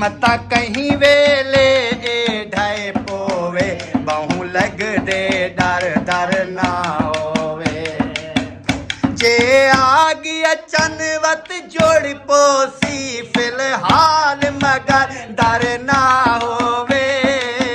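Voices singing a folk song to a small hand drum beaten by hand in a steady rhythm, with hand clapping.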